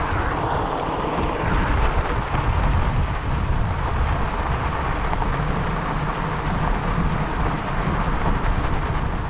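Steady rumble of a bicycle rolling fast down a sandy gravel trail: tyres on sand and gravel, with wind buffeting the microphone.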